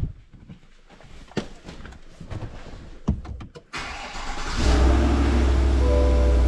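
A few scattered clicks and knocks, then about four seconds in the 2022 GMC Sierra 1500's engine starts and settles into a loud, steady low rumble. Music with held notes comes in near the end.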